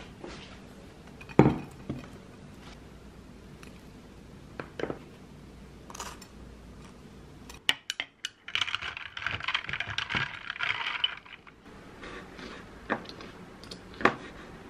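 Ceramic dishes and utensils knocking and clinking on a wooden tray, with a heavier knock about a second and a half in and a few seconds of busier clatter just past the middle.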